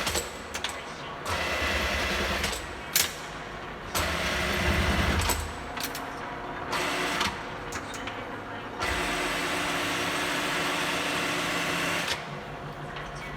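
Enshu VF2 milling machine running in three separate bursts, the longest about three seconds near the end, the middle one loudest with a low rumble. There is a sharp click between the first two.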